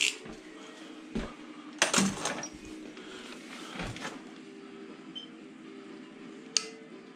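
Several sharp knocks and clinks of tools or workpieces being handled and set down, the loudest cluster about two seconds in, over a steady low hum.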